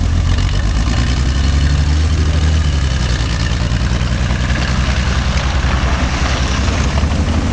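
Polish TKS tankette's engine running steadily with a low, even rumble as the small tracked vehicle drives and turns.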